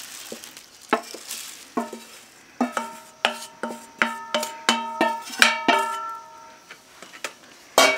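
Ground spice powder pouring with a soft hiss into a stainless steel bowl, then a wooden spoon knocking against a metal bowl about fifteen times to knock out the last of the powder, each knock leaving the bowl ringing with several tones.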